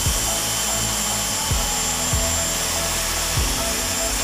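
SKIL corded circular saw running at full speed, its blade cutting across a pine 2x4, with a steady high motor whine.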